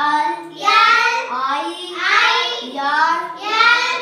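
A boy's voice chanting flower names in a sing-song, about four drawn-out phrases one after another.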